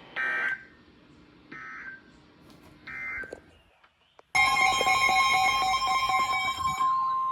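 Emergency Alert System warning signal on NOAA Weather Radio. Three short screeching SAME data bursts come about a second and a half apart, then a loud steady alert tone near 1 kHz starts suddenly about four seconds in. For its first couple of seconds other tones sound over it, then the single tone carries on. It announces the severe thunderstorm warning that follows.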